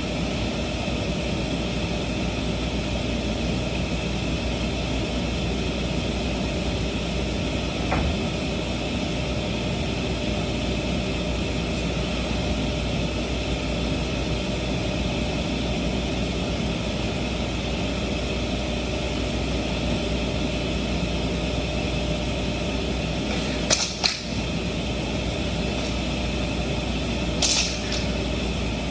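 Steady drone of running shop machinery, with a faint click about eight seconds in and two short, sharp sounds near the end.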